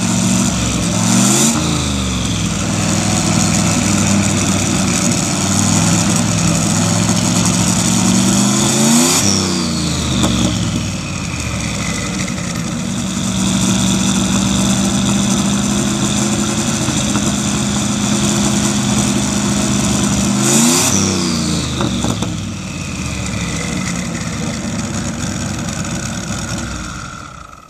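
Land-speed streamliner's race engine idling with open headers, revved up and back down three times, then shut off just before the end.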